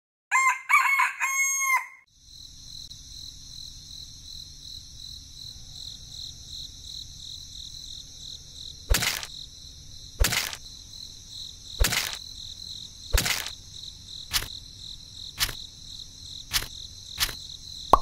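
A rooster crows once at the start. After it, a steady chorus of crickets runs on, with a series of short sharp knocks about once a second through the second half.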